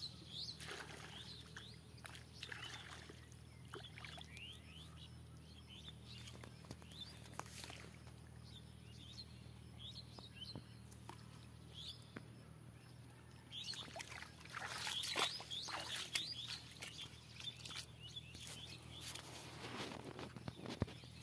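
Small birds chirping in short rising notes again and again, with rustling and splashing of floating pond weed and water as a hooked fish is hauled in by hand. The louder splashy bursts come mostly in the second half.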